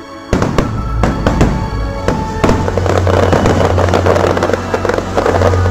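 Aerial fireworks shells bursting: sharp reports begin suddenly about a third of a second in, then from about two and a half seconds on a dense crackling of glitter effects, over the show's music.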